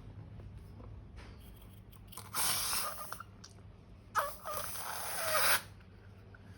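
Slime and trapped air squeezed out through a narrow opening. There are two hissing bursts, and the second has a wavering squeal.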